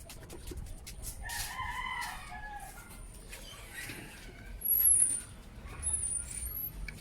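A domestic fowl calls once in a drawn-out cry about a second in. Light clicks come throughout, and sharp high-pitched chirps follow near the middle; the chirps are the loudest sound.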